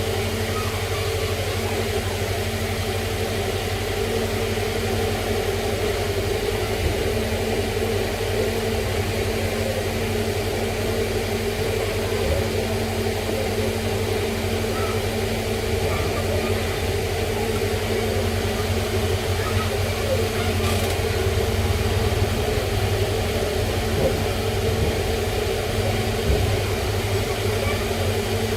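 A steady low hum with a few constant tones over a background hiss, unchanging throughout.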